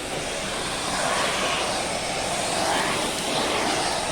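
Small bagless vacuum cleaner running steadily, its motor and suction making a constant rushing noise.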